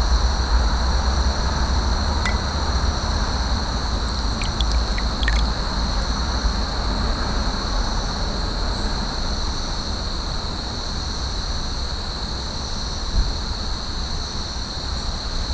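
Steady background noise, a low rumble with a steady high hiss above it, and a few faint light clicks about two and five seconds in.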